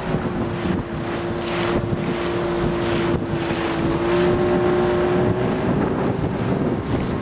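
Small fishing boat's outboard motor running at a steady cruising speed, a steady engine tone, with wind buffeting the microphone.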